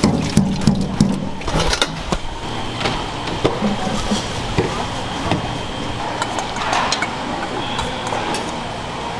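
Stainless steel mesh strainer of rinsed noodles knocked and shaken to drain: a quick run of clanks in the first two seconds. Scattered clinks of metal bowls and utensils follow over a steady background din.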